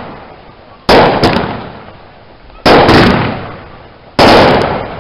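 Fireworks going off: three loud bangs about a second and a half apart, each followed by a quick smaller pop and an echo that dies away over a second or so.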